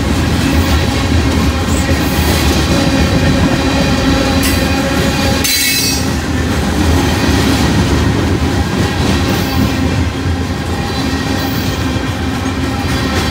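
Freight train of covered hopper cars rolling past close by: a steady, loud rumble of steel wheels on rail with clickety-clack from the trucks, and steady metallic ringing tones above it. About five and a half seconds in there is a brief high squeal.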